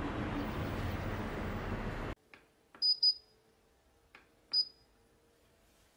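Steady outdoor city ambience that cuts off abruptly about two seconds in. Then short, high electronic beeps from the touch buttons of a tabletop mist diffuser as they are pressed, each with a faint click: two in quick succession, then a third about a second and a half later.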